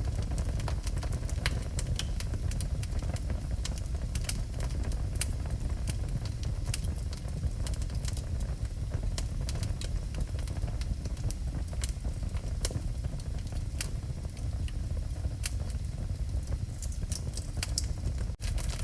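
Wood fire burning in a fireplace: a steady low rumble with frequent sharp crackles and pops. The sound cuts out for an instant near the end.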